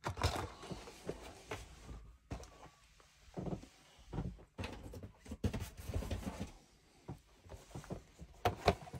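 Cardboard model-kit boxes being handled, set down and slid about on a cloth, with irregular rustling, scraping and soft knocks.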